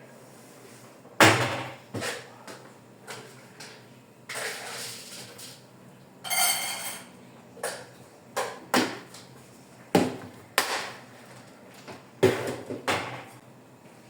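Irregular knocks and clatters of household items being handled and set down in a kitchen, with a short pitched squeak about halfway through.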